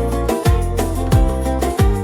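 Background music: a deep kick drum whose pitch drops on each hit, three times about two-thirds of a second apart, under a steady layer of held melodic notes.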